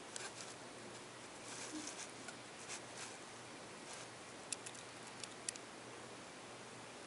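Faint rustling and a few sharp ticks from small kittens moving about on carpet and a bath mat, over a steady low hiss.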